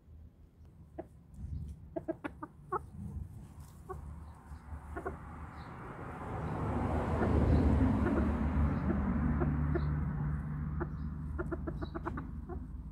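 Rooster clucking in quick runs of short notes, about two seconds in and again near the end. In between, a louder rushing noise with a low hum swells and fades.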